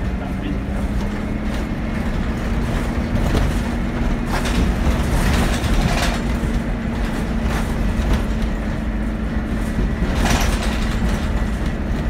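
Scania N270UD double-decker bus driving, heard from inside on the upper deck: its five-cylinder diesel drones steadily under rumbling road noise, with a few short hissy bursts near the middle and near the end.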